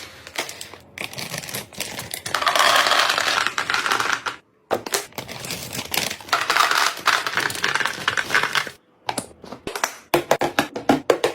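Dense, rapid clicking and rustling of small hard items being handled, in three bursts that stop abruptly, with sharper separate clicks and knocks near the end.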